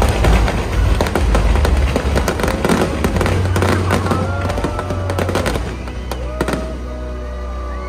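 Show fireworks going off in a dense run of rapid crackles and bangs over loud bass-heavy show music. The bursts thin out about five and a half seconds in, leaving mostly the music.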